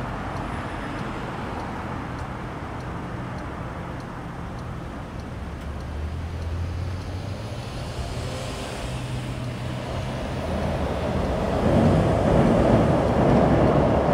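Road traffic rumbling steadily, with a vehicle growing louder over the last few seconds as it passes close.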